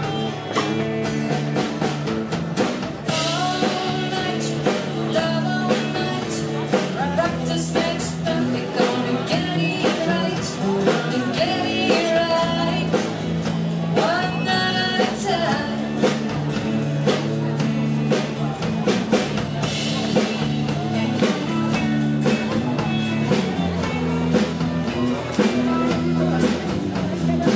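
Live band playing a country song: a singer over acoustic and electric guitars, with a drum kit keeping a steady beat.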